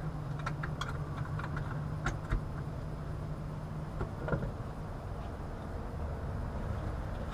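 Low steady hum of rooftop air-conditioning equipment that fades out about four seconds in, under a steady low machinery rumble, with scattered light clicks and taps of tools being handled.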